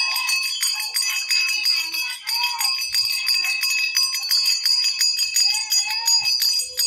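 Bells ringing continuously, struck rapidly over and over so their ringing tones never die away.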